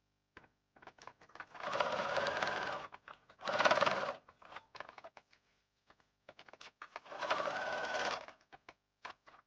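Electric sewing machine stitching a zipper into a jacket in three short runs of a second or so each, with small clicks between the runs.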